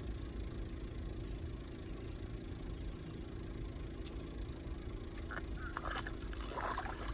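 Steady low background rumble with a faint steady hum; in the last second and a half, a few short sharp sounds.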